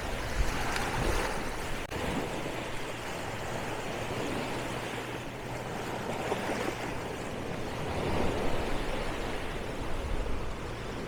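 Small waves breaking and washing up on a sandy beach, the surf noise swelling and easing every few seconds.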